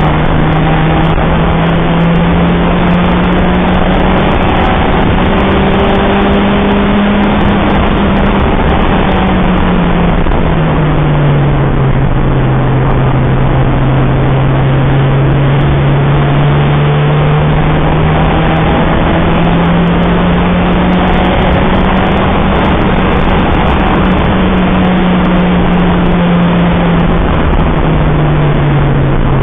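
Citroën Saxo VTR's 1.6-litre four-cylinder engine pulling hard on track, its note climbing slowly and dropping sharply a few times at gear changes, under a heavy rush of wind and road noise.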